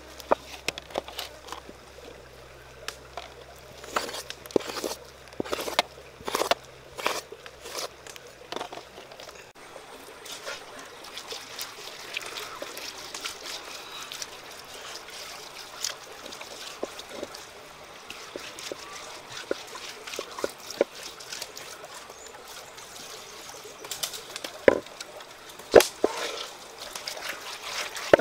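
Hands rubbing and squishing a wet chili-and-herb paste into a slab of raw beef ribs: irregular moist smacks and clicks over a faint steady hiss, busiest at the start and loudest near the end.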